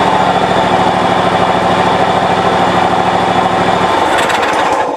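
John Deere LT190 lawn tractor's Kawasaki 18 hp engine running steadily on its first run after reassembly with new gaskets and seals. About four seconds in, its low note drops away.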